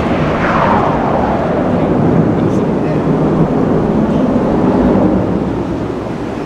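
Airbus A350-1000's twin Rolls-Royce Trent XWB-97 turbofans running at high thrust in a steep climbing turn: a loud, steady jet roar, with a whine that falls in pitch about half a second in.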